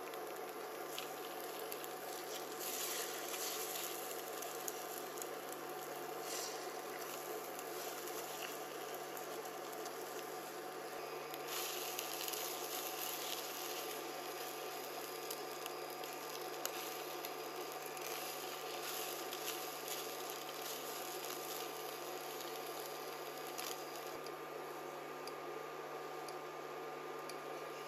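Eggs sizzling softly in a nonstick frying pan while a spatula stirs and folds them into a scramble, with light scrapes and taps of the spatula against the pan. A steady hum runs underneath.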